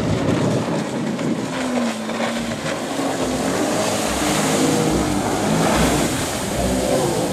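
Jet ski engine running at speed, its pitch shifting up and down, over the rush of water spray and wind.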